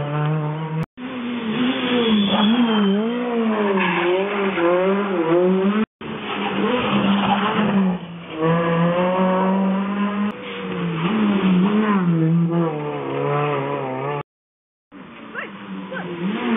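Rally cars coming past one after another at speed, their engines revving hard with the pitch swinging up and down through gear changes and lifts. The sound cuts off abruptly three times between passes.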